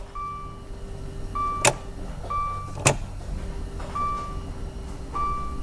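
Dodge Dart's electric fuel pump priming with the ignition on and the engine off, a steady hum heard from inside the cabin. It runs about two seconds, stops, and runs again for about two seconds after the key is cycled, which shows the pump and its relay are working. A dashboard chime beeps about once a second throughout, and two sharp clicks come in the middle.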